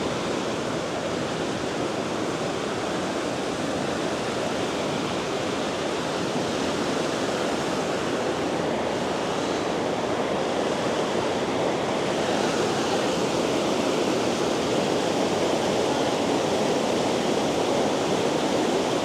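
River rapids running high after rain: a fast, heavy flow of water rushing over rocks in a steady, unbroken rush that grows slightly louder toward the end.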